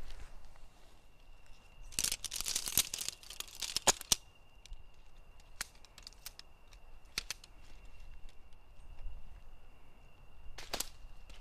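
Tent poles being unfolded and fitted together: a quick rattling run of clicks as the shock-corded sections clack into each other, then single clicks as joints snap home, and another short rattle near the end. A faint steady high tone sounds behind it.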